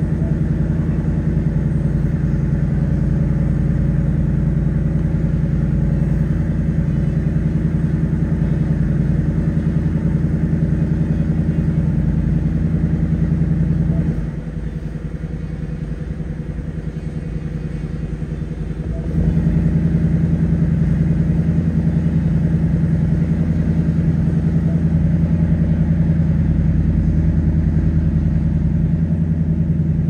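2024 Ford Mustang GT's 5.0-litre Coyote V8 idling steadily, with no revving. Its level drops for about five seconds around the middle, then comes back.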